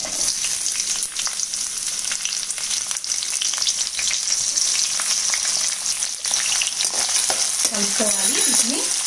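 Chopped onions frying in hot tempering oil in a kadai: a steady crackling sizzle that jumps up at the start as the onions drop in. A steel spoon stirs them, with occasional clicks against the pan.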